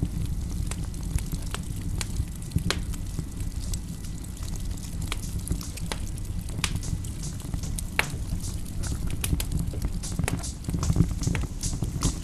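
A played-back sound recording: a steady low rumble with irregular sharp crackles and clicks scattered over it, heard through a video call.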